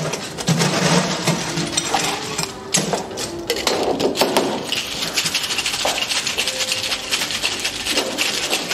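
Metal cocktail shaker clattering as it is handled and sealed. From about five seconds in, ice rattles rapidly and steadily inside it as it is shaken hard.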